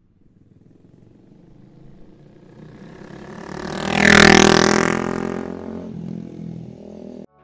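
Honda Rebel 300's single-cylinder engine through a Coffman's Thunder exhaust, riding past: it grows louder, is loudest about four seconds in, then fades away as its pitch drops.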